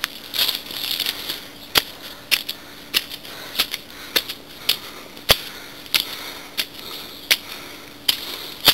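Footsteps climbing stone steps: a steady walking rhythm of sharp clicks, about one every 0.6 seconds.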